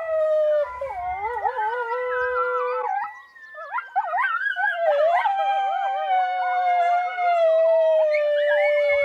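Coyote howls and whines from an electronic predator call playing the 'Boone Lone Whine Howls' sound, several long, wavering howls overlapping one another, with a short break about three seconds in.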